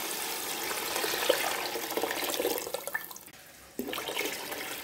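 Water being poured in a stream into a large cooking pot of thick tomato and onion sauce, splashing as it fills. The pouring breaks off briefly about three seconds in, then resumes.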